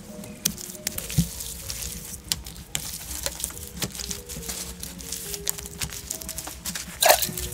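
Dry grass and sticks handled by hand on a slatted wooden roof: a run of light clicks and rustles, with one louder rustling crunch about seven seconds in. Soft background music of held notes plays underneath.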